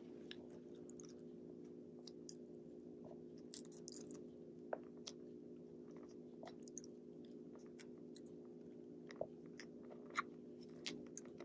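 A Shiba Inu chewing and nibbling a leaf of lettuce, faint, with irregular small crunches now and then; the sharpest comes about ten seconds in. A steady low hum runs underneath.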